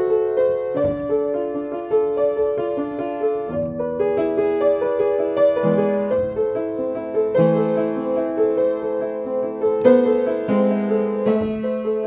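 Upright piano played by hand: a continuous flowing passage of melody over chords, the notes overlapping and mostly in the middle range.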